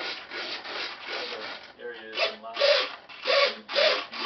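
Hobby servos in a foam RC Thrush model whirring in short bursts as they drive the ailerons and elevator back and forth, with four louder bursts in the second half.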